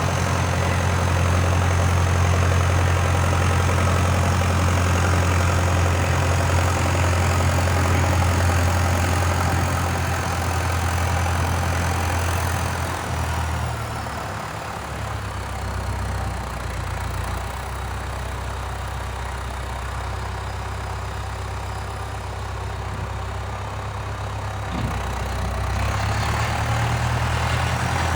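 Diesel engine of a Valtra 815 backhoe loader running steadily, dropping to a lower, quieter idle about halfway through, then revving back up near the end.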